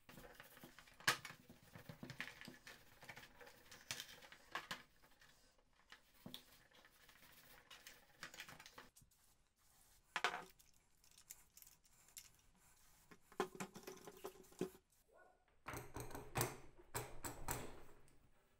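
Handling noise of a rusty cast-iron hand drill: irregular clicks, clinks and knocks as it is lifted, turned and set down, with a short hiss of aerosol spray about ten seconds in and denser clattering near the end.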